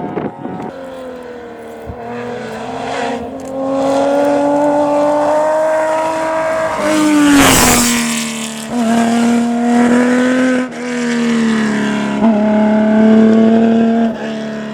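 Historic rally car's engine revving hard at speed, rising in pitch, with a loud rush of noise and a drop in pitch about halfway through as it passes, then several brief dips in revs as it drives away.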